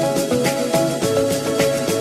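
Background music with a steady beat and a melody of clear pitched notes.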